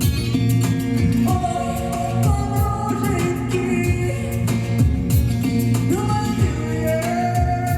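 Music: a woman singing long, held notes that slide between pitches, over a band with a steady drum beat and bass.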